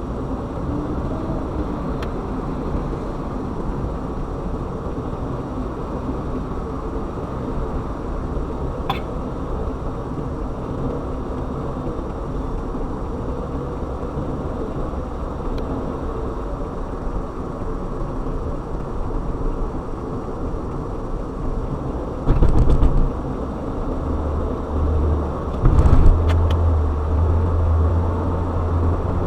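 Steady road and engine noise of a car driving, heavy in the low end. About two-thirds of the way through come two short, loud bursts a few seconds apart, and a deeper drone sets in over the last few seconds.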